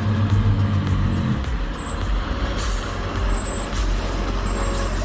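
Heavy truck running, with a steady engine note that drops away about a second and a half in, followed by a rumbling noise with a few brief high squeals.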